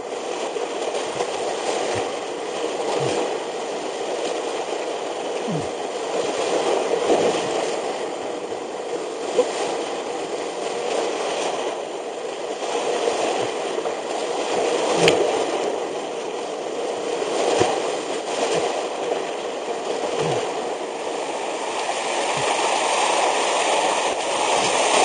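Whitewater rapids rushing steadily around a kayak, heard through a helmet camera's microphone and played back at double speed, with scattered short knocks and splashes, the sharpest about fifteen seconds in.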